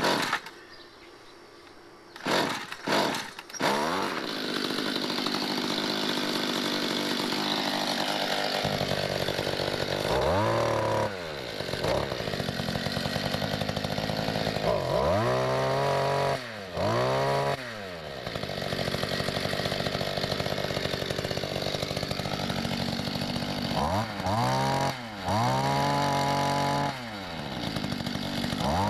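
1994 Mantis tiller's two-stroke engine cold-started with a few pulls of the recoil starter at half choke; it catches about four seconds in and runs steadily. Its throttle is blipped several times, the engine revving up and dropping back to idle, with its carburettor newly adjusted so it runs well.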